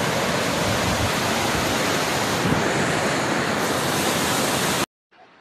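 Muddy flash-flood water rushing down an eroded desert channel: a loud, steady, even rush that stops abruptly near the end.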